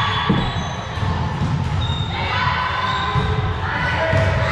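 Indoor volleyball game echoing in a gym hall: a ball thump about a third of a second in, over steady low hall rumble, with several short high held tones and faint voices.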